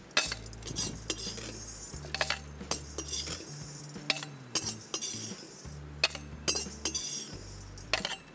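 A metal ladle scrapes and clinks against a steel kadai and a steel mixer-grinder jar as dry roasted urad dal is scooped up and poured in. Each pour brings a short rattling rush of grains into the jar, and there are sharp knocks of metal on metal in between.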